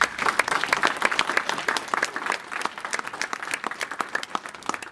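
An audience applauding, breaking out all at once as a speech ends.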